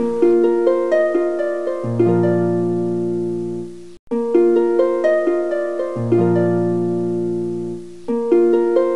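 Background music: a light plucked-string melody, harp-like, over lower held notes. It breaks off briefly about four seconds in, then the same phrase starts again.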